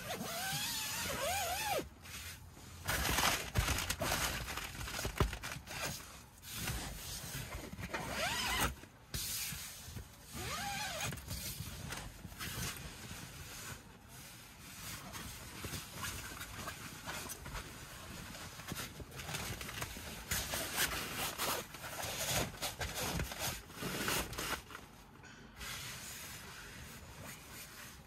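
Rooftop-tent fabric rustling and zips rasping as the tent is unzipped and packed up from inside, in irregular bursts with short pauses.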